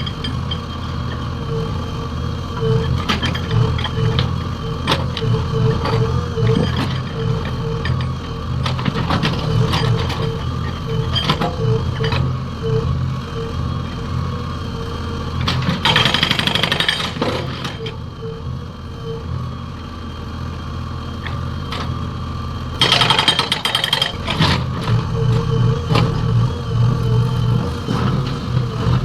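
Diesel engine of a JCB 3DX backhoe loader running under load while its hydraulic breaker hammers in quick repeated blows. Two louder, hissier spells of hammering come about halfway through and again a few seconds later.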